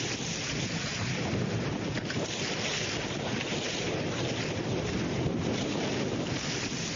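Wind buffeting the microphone over rushing water and spray, as a Tornado racing catamaran sails fast through the waves. It is a steady, unbroken rush with no let-up.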